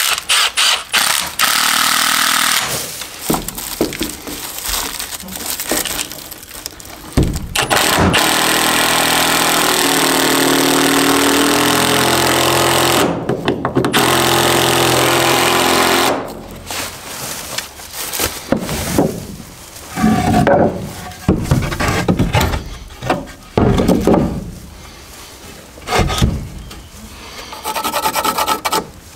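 Power tools working 2x4 lumber: a long, steady run of a saw cutting, with a brief break partway, then several short bursts of about a second each, near the end.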